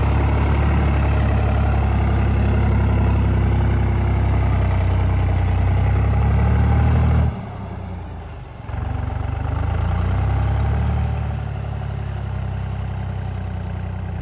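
Farm tractor's diesel engine running steadily at high revs, cutting back sharply about seven seconds in, then picking up again and settling at a lower, steady speed.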